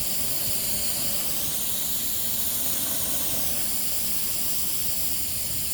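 A jet of water spraying into a water tank to wash it out, a steady hiss whose tone shifts slowly.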